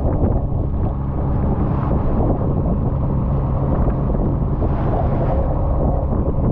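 Fishing boat's engine running steadily, with wind blowing on the microphone.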